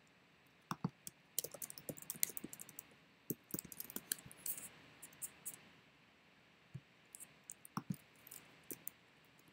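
Typing on a computer keyboard: a quick run of keystrokes for about three seconds, then a few separate clicks of keys or a mouse near the end.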